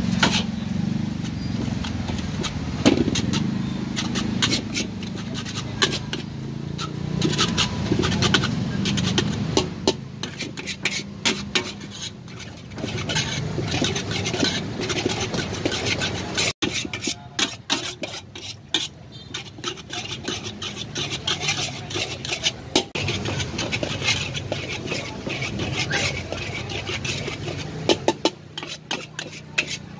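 Metal spatula scraping and clanking against a steel wok as rice is stir-fried, many quick strokes through the whole stretch. A steady low rumble runs underneath.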